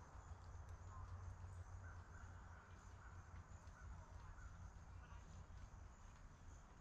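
Quiet outdoor roadside ambience: a steady low rumble, with a faint high note held for about a second and a half, starting about two seconds in. No car passes.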